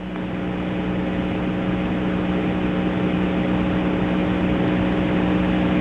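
Two-way radio channel open with no voice on it: steady hiss and a low hum, fading in over the first second. The call just made on it goes unanswered.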